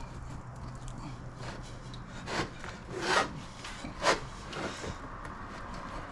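Rubber tire bead rubbing against the scooter's wheel rim as it is pushed on by hand, the bead soaped to help it slide. Three louder scrapes come around the middle.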